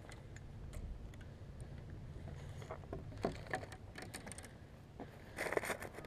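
Light clicks and knocks of fishing rods and reels being handled and laid on a wooden bench, a few at a time and then a denser rattle of clicks near the end, over a low steady rumble.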